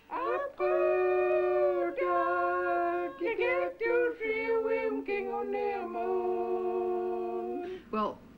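Women singing a slow song together, holding long notes and changing pitch every second or so, stopping shortly before the end.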